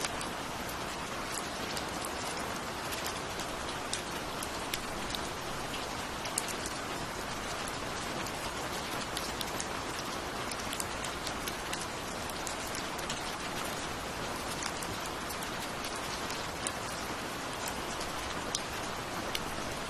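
Steady rain falling, an even hiss with many individual drops ticking sharply on a hard surface.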